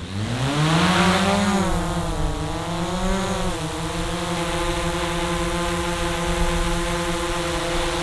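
DJI Mavic Pro Platinum quadcopter's motors and low-noise propellers spinning up from rest with a rising hum, wavering in pitch as it lifts off and climbs, then settling into a steady hover hum.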